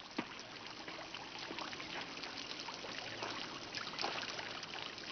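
Running water trickling and splashing steadily, like a small stream.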